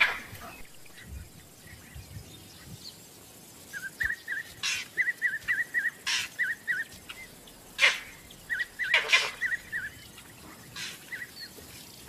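Vervet monkey alarm calls: one loud sharp call at the start, then a rapid run of short high chirps, about three a second, broken by several louder sharp calls. The calls warn that a predator is near.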